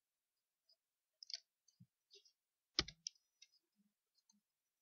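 Faint, irregular clicks of a computer keyboard and mouse as coordinate numbers are typed into a software dialog, with the loudest clicks about three seconds in.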